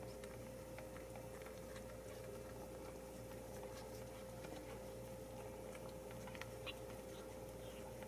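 Ragdoll mother cat licking her wet newborn kittens: faint, irregular small licking clicks over a steady low hum.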